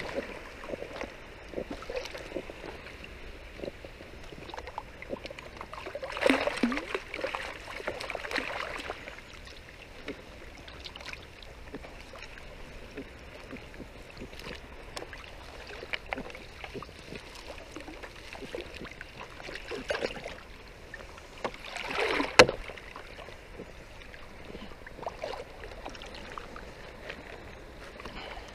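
Water sloshing and splashing as a gill net full of fish is pulled through shallow water into a plastic tub, with louder splashing about six seconds in and again near twenty-two seconds, where there is one sharp knock.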